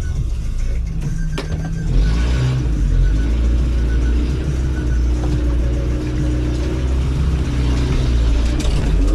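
Electronic dance music with a heavy bass line that steps between held low notes.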